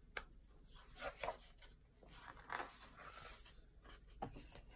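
Faint rustling of the stiff paper pages of a hardcover picture book being turned by hand, a few short swishes with a soft tap or two against the table.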